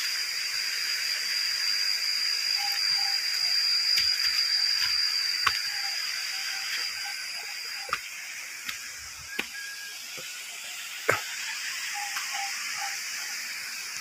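Steady rushing hiss of a waterfall heard from above, with a thin, high, steady tone over it that stops about eight seconds in. A few light clicks are scattered through.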